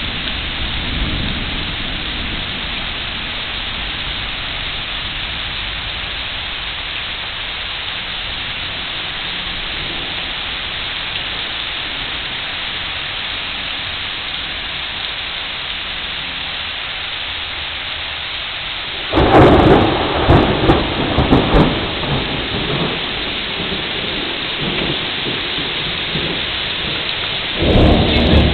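Steady rain falling on pavement and leaves. About two-thirds of the way in, a sudden loud thunderclap rumbles for a few seconds and fades. Another loud burst starts near the end.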